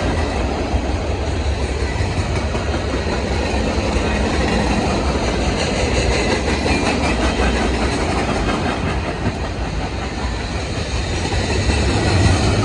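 CSX manifest freight train rolling past: steady rumble of the railcars with the wheels clacking over the rail joints.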